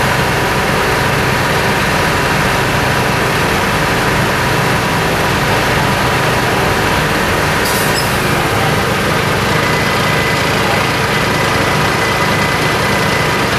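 Heavy diesel engines of fire engines running steadily, with a short high-pitched clatter about eight seconds in.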